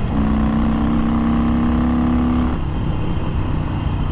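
Harley-Davidson Sportster 48's 1200 cc air-cooled V-twin heard from the saddle, pulling steadily under throttle on the road after a quick upshift right at the start. About two and a half seconds in, the throttle closes and the even engine note gives way to an uneven off-throttle rumble.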